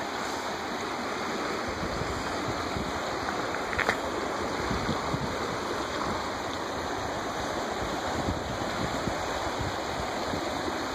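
Steady rushing of flowing floodwater.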